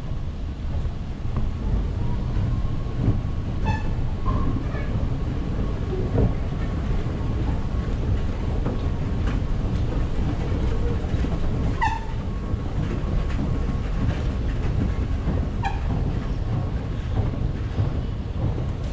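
Steady low rumble of an underground metro station heard from a moving escalator, with a few short, high squeaks.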